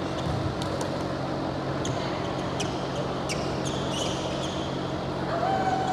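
Indoor sports-hall background during a volleyball game: a steady low hum and room noise, with scattered short sharp clicks and squeaks from play on the court. A brief held tone comes near the end.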